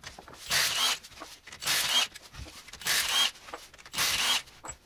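Ratchet wrench clicking in regular strokes, about one a second, each a short rasping run of clicks, while the wheel hub on the Opel Frontera is being unbolted.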